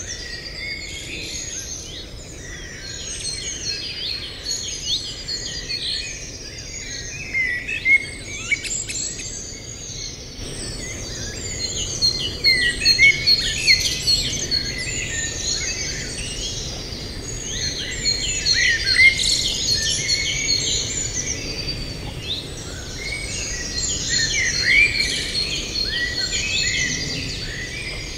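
A dense chorus of many songbirds singing and chirping over one another, with short rising and falling notes and no let-up.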